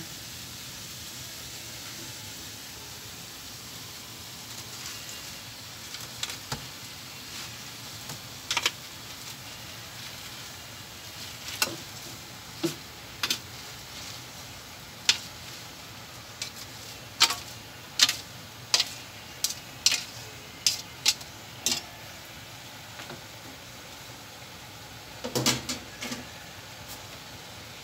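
Pechay (bok choy) leaves and sautéed onion sizzling in a pan, a steady frying hiss, with a scattered run of sharp clicks and taps from a slotted spatula against the pan as the greens are turned, thickest in the middle and again near the end.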